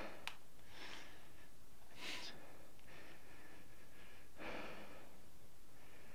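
A person breathing audibly through the nose, a few faint, short breaths over low room hiss.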